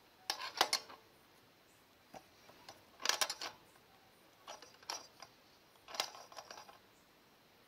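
Small metal parts and hand tools being handled, in four short clusters of light metallic clicks and rattles about a second or two apart.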